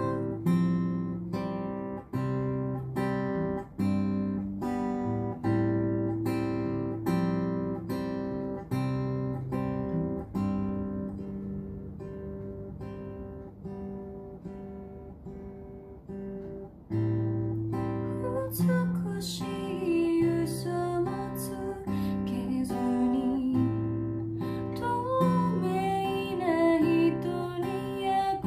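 Background music: acoustic guitar picked in a steady pattern, growing softer in the middle, with a voice singing over it from about two-thirds of the way through.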